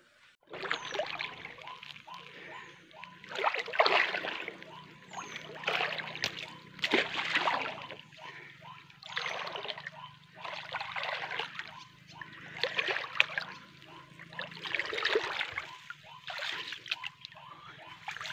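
Footsteps wading through shallow, muddy swamp water, a sloshing splash with each step every second or two.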